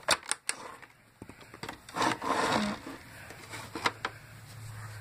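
Quick plastic clicks and knocks from a toy cash register being handled and its buttons pressed, three sharp clicks in the first half second, then a low steady hum from past the middle.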